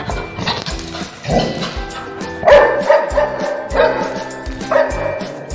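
Labrador barking several times at a rat in a wire cage trap, the loudest barks in the second half, over background music with a steady beat.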